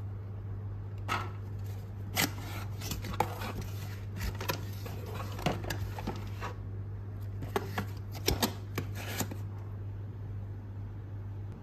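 A cardboard box of small nail-polish bottles being opened and handled, the bottles clicking and knocking against each other and the clear acrylic shelving in an irregular run of sharp clicks, over a steady low hum.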